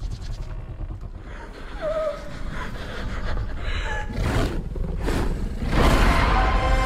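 Movie trailer sound effects: a deep low rumble with three rushing swells in the second half, the last the loudest, and a short wavering tone near two seconds in.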